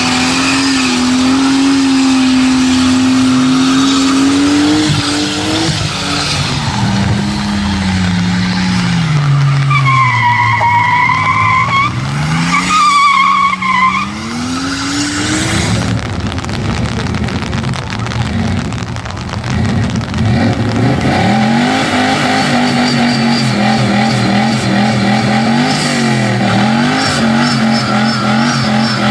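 Car doing a burnout: the engine is held at high revs, then the revs drop and climb again while the tyres squeal, a wavering high whine about ten to fourteen seconds in. From about two-thirds of the way through, the engine is held at fairly steady high revs again with a slight wobble.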